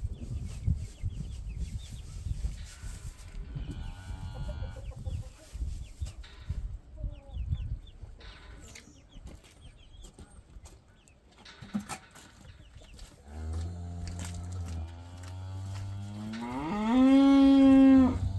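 Cow mooing: a low held moo a little after midway, then a louder moo that rises in pitch near the end. Low rustling and knocks come before it.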